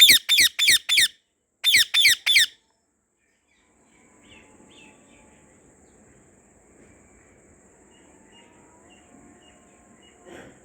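Indian ringneck parakeet giving a rapid run of harsh, screeching calls, each falling in pitch: five in quick succession, a short pause, then three more. Afterwards only faint outdoor background with a few faint distant chirps.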